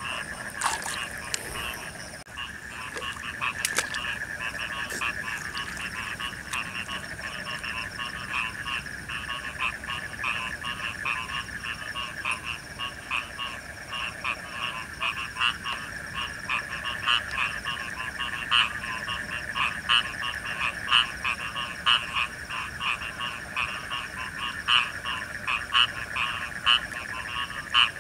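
A chorus of many frogs calling in a flooded rice paddy after rain, typical of frogs gathering to breed. Their overlapping calls make a steady trill, with pulsed croaks repeating several times a second that grow louder in the second half. A few sharp clicks come in the first few seconds.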